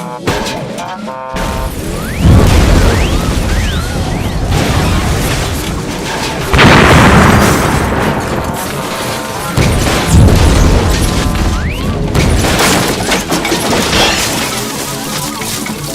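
Loud booms and crashes, three big hits a few seconds apart with each one trailing off, over music.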